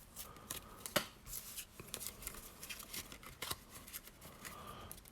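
Pokémon trading cards being handled: scattered light clicks and rustles of card stock and plastic, with a sharper click about a second in.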